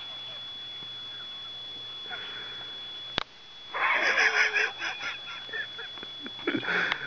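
A cat hissing and growling in anger at being woken: a loud hiss of about a second with a wavering growl under it, fading out, then a second short hiss near the end. A sharp click comes just before the first.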